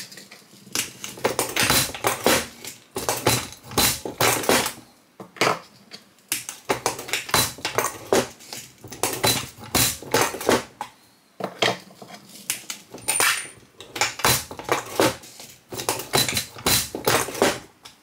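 MEC 600 Junior shotshell reloading press being worked through its stations to star-crimp shotshells: repeated clusters of metal clicks and clanks from the handle and shells, with short pauses between strokes.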